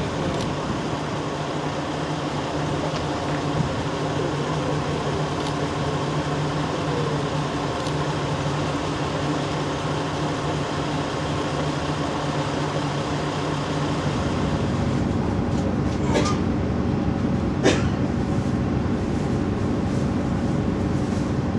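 Diesel railcar's engine idling steadily, a low even hum with a steady pitch. About two-thirds of the way through it gets a little louder and changes in tone, and two sharp clicks come a second and a half apart near the end.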